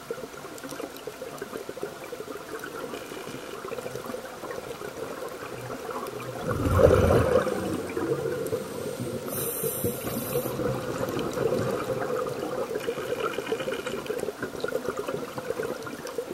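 Scuba diver breathing through a regulator underwater: gurgling bursts of exhaled bubbles, the loudest about seven seconds in, and a brief hiss of an inhale about halfway through.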